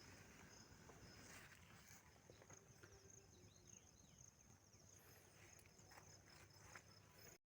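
Near silence with faint outdoor ambience: a steady high insect drone, like crickets, with a few short high chirps in the middle, cutting off abruptly near the end.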